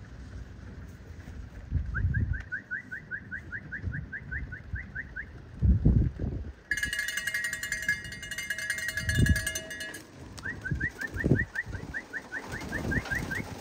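Pigeons cooing, with a small wild bird trilling twice, a quick run of rising notes each time. A steady high-pitched whine runs for about three seconds in the middle.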